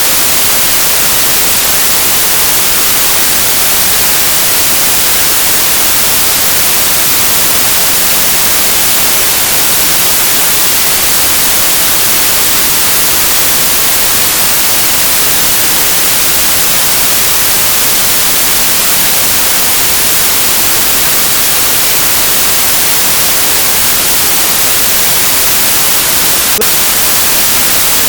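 Loud, steady hiss of white noise like radio static, even and unchanging, with no other sound in it.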